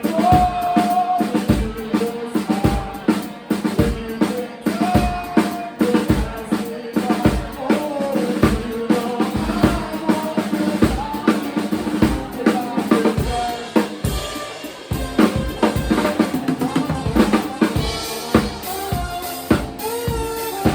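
A live band playing, led by a drum kit with a steady kick-drum beat about twice a second under bass and other pitched instruments. The drumming gets busier about two-thirds of the way through.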